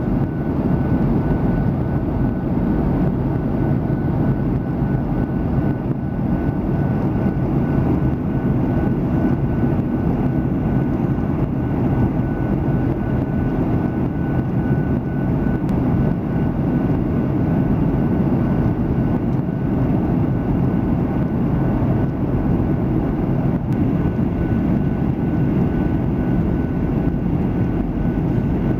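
Steady cabin noise inside an airliner in flight: an even low rumble of engines and rushing air, with a faint high steady whine running through it.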